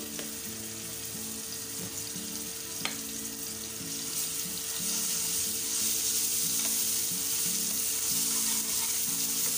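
Ginger-garlic paste sizzling in hot oil in a frying pan as a slotted spatula spreads and stirs it; the sizzle grows louder about halfway through as the paste is worked into the oil. A single sharp tap sounds just before three seconds in. This is the first stage of the masala: the raw paste frying in oil.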